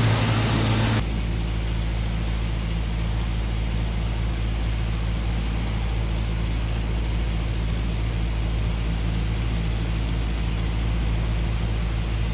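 A steady, low engine hum with a constant pitch, like an engine running at idle, with some background hiss that drops away about a second in.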